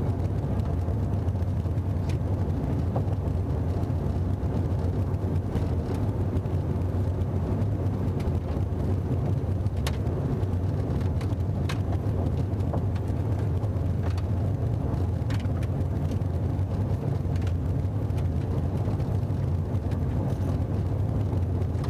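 Subaru car's engine drone and road rumble heard inside the cabin while cruising at a steady speed, with a few faint clicks.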